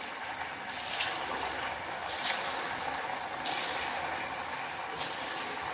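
Rice-flour ring murukku deep-frying in oil in a metal kadai: a steady sizzle, with a louder crackle about every second and a half.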